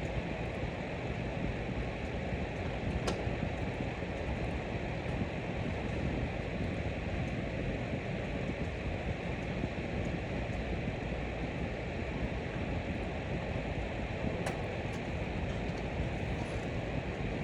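Electric fan running steadily: an even rush of moving air, with two faint clicks, one about three seconds in and one near the end.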